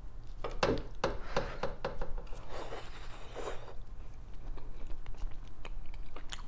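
Close-up eating sounds: a fork picking steak fries off a paper plate, then chewing, heard as a string of small clicks and wet mouth noises, busiest in the first couple of seconds.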